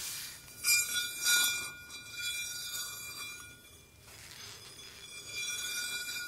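Close-miked ASMR trigger sounds: two sharp taps on a small hard object, a little under a second and about 1.3 s in, each followed by a high glassy ringing over a soft hiss that fades after a couple of seconds. The ringing and hiss return near the end.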